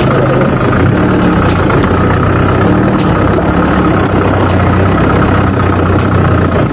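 Vehicle engine running steadily at low revs, with a light high tick repeating about every second and a half.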